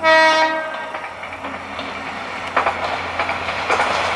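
KiHa 2300 diesel railcar giving one short horn blast, then running toward the listener with its wheels clattering over the rail joints, growing louder as it nears.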